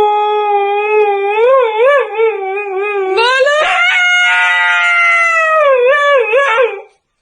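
Husky howling in long, wavering, complaining cries, the pitch stepping up about three seconds in, then sliding back down before it stops near the end.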